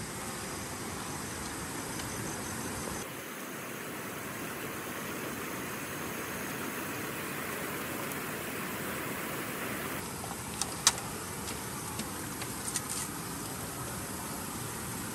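Steady hiss of outdoor night-time background noise, changing abruptly twice, with a few sharp clicks from about ten and a half to thirteen seconds in, the loudest one about eleven seconds in.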